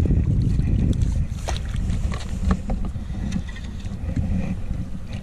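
Steady low wind rumble on the microphone, with scattered short sharp splashes from a small hooked fish thrashing at the water's surface.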